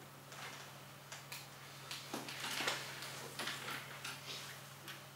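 Classroom of students working quietly at their desks: scattered, irregular light clicks and rustles, thickest in the middle, over a steady low hum.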